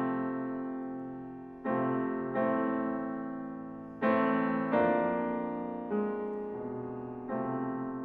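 Steinway D concert grand piano playing slow, sustained chords: six chords struck in turn, each left to ring and fade before the next.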